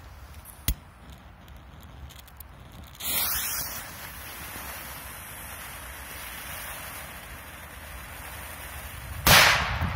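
A lit K-05 firecracker's fuse hissing for about six seconds, then the firecracker going off in a single sharp bang near the end.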